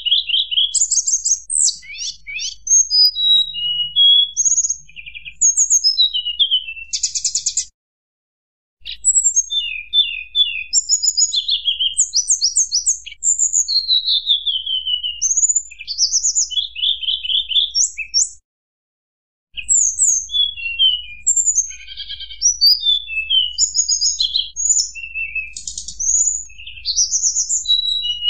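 Tledekan gunung singing its fluting ('nyuling') song: quick, varied phrases of high whistles, slurred falling notes and fast trills, packed close together. The song cuts out abruptly twice for about a second, near 8 and 18 seconds in.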